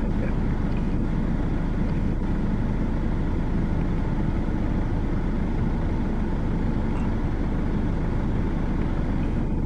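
Steady low rumble of an idling vehicle engine, unchanging in level throughout.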